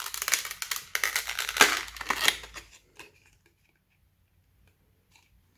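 Retail CPU box and its plastic packaging being handled and opened: a busy crackling, clicking rustle for about three seconds, then only a few faint ticks.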